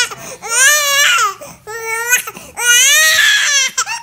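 Baby crying in three wails: a first one, a short one, and a longer one near the end.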